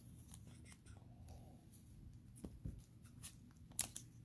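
Faint handling noise of trading cards under gloved hands: light clicks and rustles, with a few sharper clicks in the second half.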